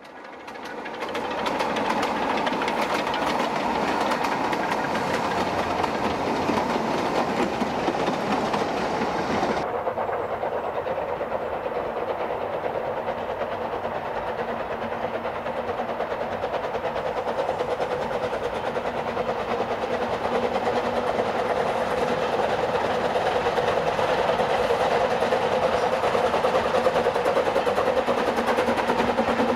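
Narrow-gauge steam trains running: a double Fairlie locomotive passes with its carriages. About ten seconds in, after a cut, another small steam locomotive works toward the microphone, growing slightly louder near the end.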